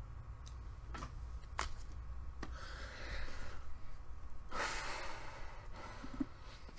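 A man breathing out heavily near the microphone twice, with a few faint clicks before and a steady low hum.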